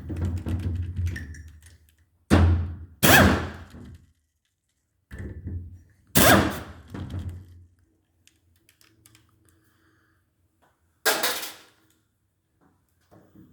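Tools and parts knocking against a cylinder head on the workbench: about six dull thuds at irregular intervals, each ringing briefly, with a quiet stretch in the middle.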